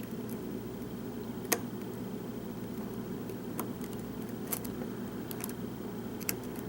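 Sparse small metallic clicks of a hook pick and tension tool working the pins of a Tesa-core pin-tumbler lock, about five over a few seconds, the sharpest about one and a half seconds in, over a steady low hum.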